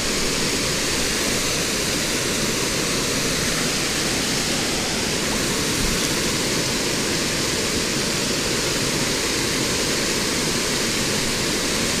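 Small creek waterfall spilling over rock ledges into a pool: a steady, even rush of falling water.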